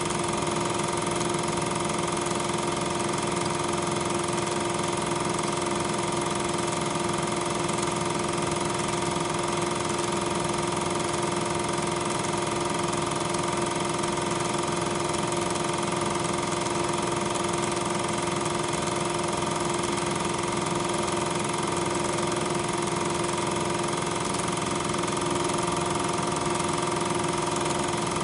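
Steady machine drone with a few constant tones and hiss, unchanging through the picture's cuts. It is not sound from the trains, since regular 8mm film carries no sound track.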